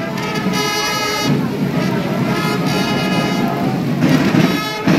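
Brass band of trumpets and sousaphones playing sustained chords in heavy rain, with the downpour's hiss underneath the music.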